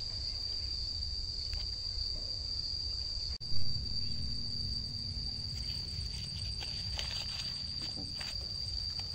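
Steady, high-pitched insect chorus holding one unbroken tone, over a low rumble. About three and a half seconds in the sound drops out for an instant and a single loud thump follows.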